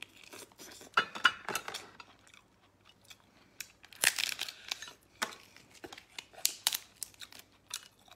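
Close-up eating sounds: a person biting into, tearing apart and chewing cooked food, with irregular sharp clicks and snaps, loudest about a second in and again about four seconds in.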